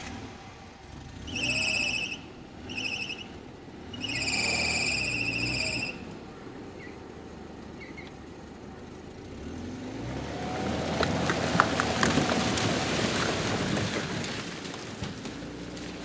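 Lada Niva pulling a caravan out of an overgrown hedge: three high-pitched squeals in the first six seconds. About ten seconds in the engine works harder under a rising rush of noise with sharp cracks of breaking branches, easing off near the end.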